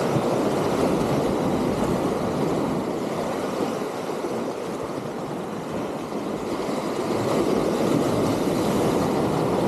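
Sea waves breaking and washing against the concrete tetrapods of a breakwater: a steady rushing wash that swells again as a bigger surge breaks near the end.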